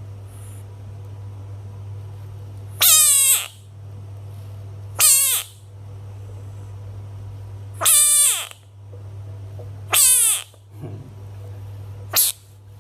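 Bullfrog giving five loud calls, each a short cry that falls in pitch, about two to three seconds apart, the last one shorter. A steady low hum runs underneath.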